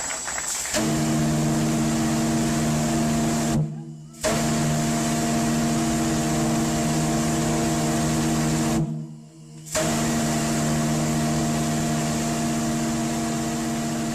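SS Normandie's three-bell chime steam whistle sounding three long blasts, each a steady low chord over a hiss of steam. The first starts about a second in and lasts about three seconds; after two short breaks, the second lasts about four and a half seconds and the third is still sounding at the end.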